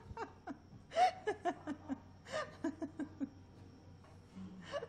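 A person laughing in short chuckling bursts that die away after about three seconds.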